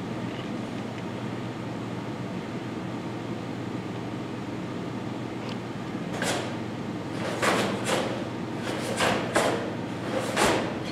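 A steady room hum, then from about six seconds in a quick irregular string of swishes and slaps: karate gi sleeves snapping and bare feet slapping the floor as two children move through a kata.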